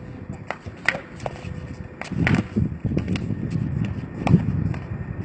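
Irregular sharp knocks and thuds of 3x3 basketball play: the ball bouncing and players' footsteps on the court, over a low background rumble.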